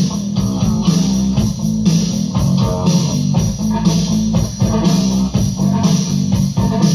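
Rock music with electric guitar and bass guitar playing to a steady beat.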